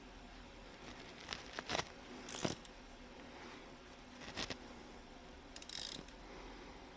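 Hand tools working a small bearing puller on an angle grinder's rotor shaft: a handful of short metallic clicks and clinks, irregularly spaced, as the puller is tightened to draw off the bearing.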